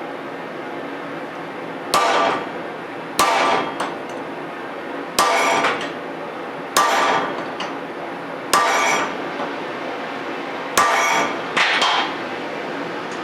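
Hammer striking steel: seven ringing blows spaced one to two seconds apart, the last two close together.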